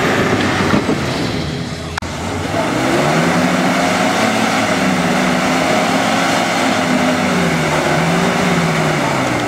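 Off-road 4x4 competition vehicle's engine revving up and down again and again, with a sharp click about two seconds in.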